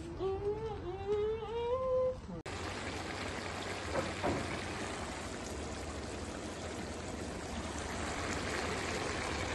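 A child's drawn-out vocal sound rising in pitch for about two seconds. It cuts off, followed by the steady hissing sizzle of a large pot of meat, rice, carrots and raisins cooking hard over high heat and giving off steam.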